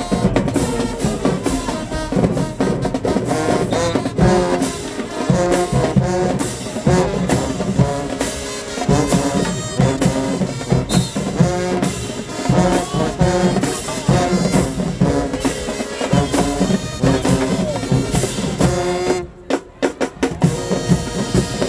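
High school marching band playing: brass section with a drumline beating underneath. About nineteen seconds in the band cuts to a few sharp, separated hits, then the brass comes back in.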